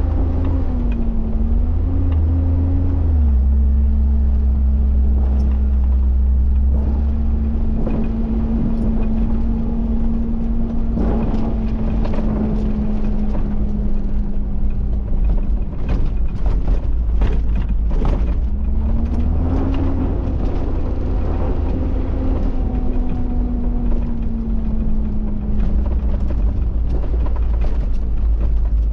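Bucher Duro truck's diesel engine droning inside the cab while driving a rough dirt track, its pitch dipping and rising near the start and climbing again just past halfway before easing off. A run of sharp knocks and rattles from the jolting cab comes in the middle.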